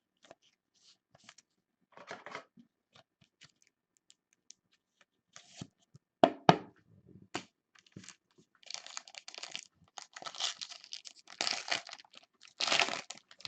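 Card packaging being torn open and crinkled: scattered clicks and a couple of knocks, then dense rustling and tearing from a little past the middle to the end.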